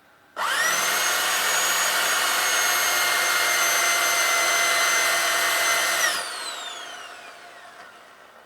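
Electric drill fitted with a 4 mm bit, drilling out a rivet head on a washing machine motor. It spins up quickly to a steady high whine and runs for about six seconds. Then the trigger is released and the whine falls away as the chuck coasts to a stop.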